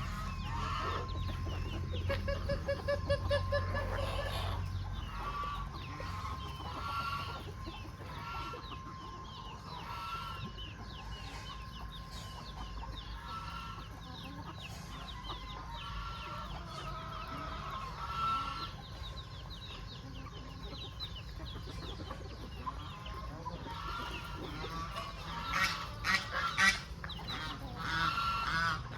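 Chickens clucking, with many short repeated calls throughout and louder calls near the end.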